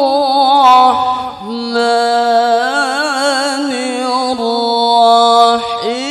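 A man reciting the Quran in the slow, melodic mujawwad style into a microphone. He holds long drawn-out notes with wavering, ornamented turns, and a new phrase begins with a rising glide near the end.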